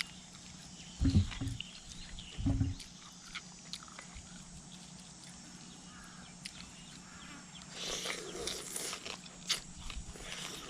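Someone eating beef noodle soup close to the microphone: slurping and chewing. There are two short, loud sounds in the first three seconds, then a longer stretch of slurping with small clicks from about eight seconds in.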